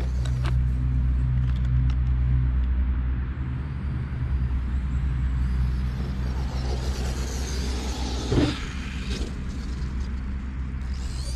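A steady low droning hum, with an RC car rushing past from about six seconds in and a single sharp thump about eight seconds in.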